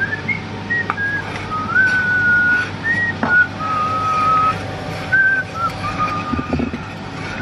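A person whistling a slow tune: a string of held notes stepping up and down. A spoon clicks lightly against a saucepan a couple of times while stirring.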